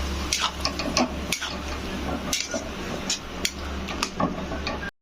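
A spatula clinking and scraping in a kadai as chicken and masala are stirred while being fried, with irregular sharp knocks over a steady low hum. The sound cuts off abruptly near the end.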